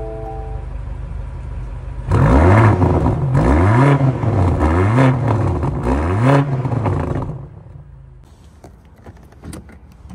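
BMW XM's twin-turbo V8 idling through its quad exhaust, then revved four times in quick succession, the pitch climbing and falling with each blip. After the last rev the engine sound drops away sharply, and a few light clicks follow near the end.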